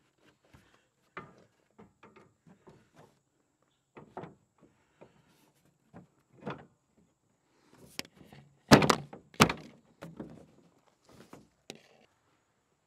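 Plastic hood of a Cub Cadet LTX1042 riding mower being handled and fitted back into place: light knocks and clatter, then two loud thunks a little under a second apart about nine seconds in.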